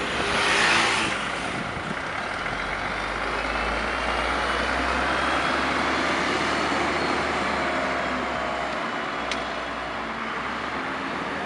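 A VDL Berkhof Jonckheer city bus driving past, its engine rumbling and growing louder through the middle before easing off. A short hiss about a second long comes at the very start.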